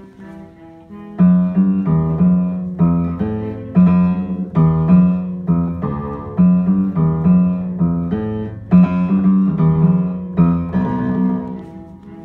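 Acoustic piano played by hand: a run of struck chords over a repeated low note, soft for the first second, then firm and regular, each chord ringing and dying away, trailing off near the end.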